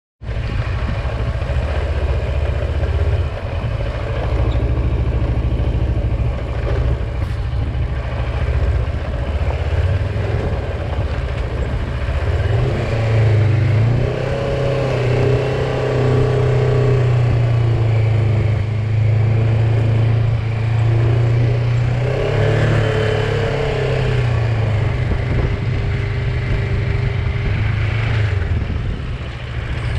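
Kawasaki Versys 650's parallel-twin engine running as the motorcycle is ridden along, its note rising and falling a little a couple of times around the middle.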